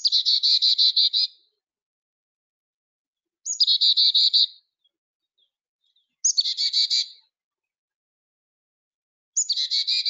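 Carolina chickadee giving its chickadee-dee-dee call four times, about three seconds apart. Each call is a brief high note followed by a rapid run of repeated dee notes.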